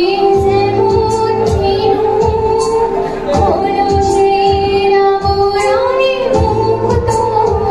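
A woman singing a melody into a handheld microphone through a PA, holding long wavering notes over amplified backing music with a steady beat.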